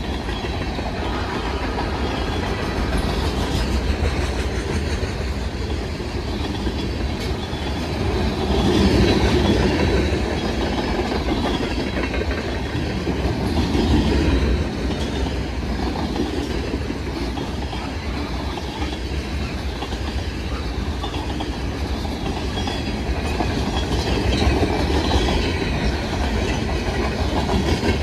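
Freight cars, boxcars and tank cars, rolling past at close range with their steel wheels running on the rails. The sound is steady, with louder swells about 9 and 14 seconds in.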